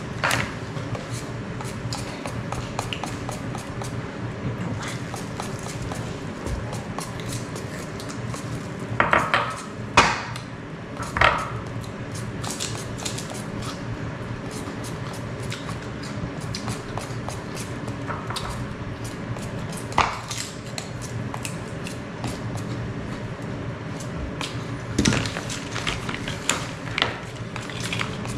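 Small kitchen knife peeling green ambarella fruit, with soft repeated clicks and scrapes of the blade, and a few louder clinks and knocks against the dishes, over a steady low hum.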